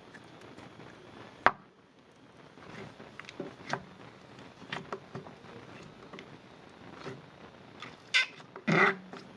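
Noise putty being squeezed and pressed in its tub: a sharp click about a second and a half in, small scattered squelches, then two louder fart-like squelches near the end.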